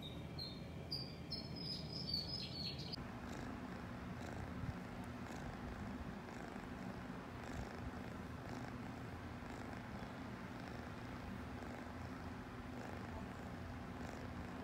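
A white cat purring steadily as its head is stroked, starting about three seconds in. Before that, a quick run of short high chirps.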